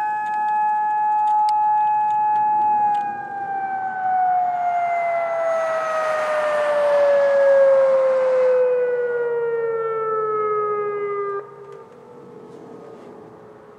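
Federal Signal outdoor tornado warning siren holding a steady tone, then winding down in pitch over about eight seconds before cutting off suddenly. A rushing noise from a passing vehicle swells and fades midway through the wind-down.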